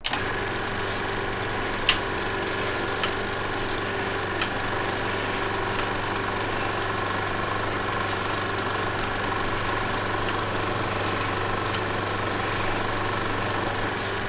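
16mm film projector running: a steady mechanical whir over a low hum, with a sharp click about two seconds in and a couple of fainter ones shortly after.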